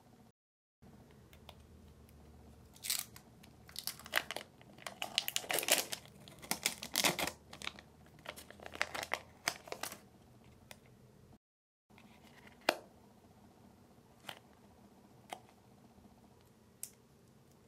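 Crinkly plastic packaging being handled and torn open: a dense run of crackling and rustling for several seconds, then a few separate light clicks and taps.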